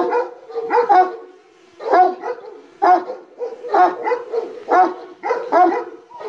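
Kangal shepherd dog barking repeatedly at a drone overhead, the barks coming singly and in quick pairs with a short lull about a second and a half in. It is a hostile reaction to the drone.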